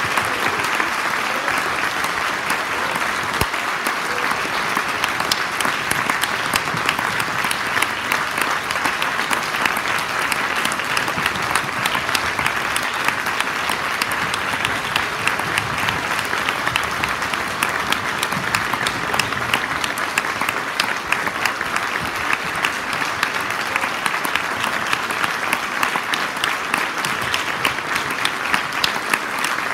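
Audience applauding: many hands clapping in a steady, dense ovation.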